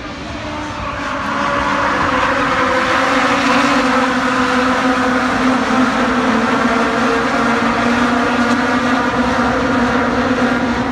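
Loud, steady engine noise that builds over the first two seconds and then holds.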